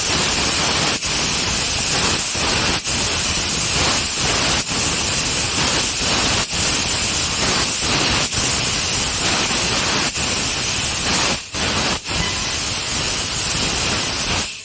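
Compressed-air assist gas hissing hard through the cutting head of a 6 kW laser cutter as it cuts 14-gauge stainless steel. The hiss drops out briefly every second or two and stops suddenly at the end.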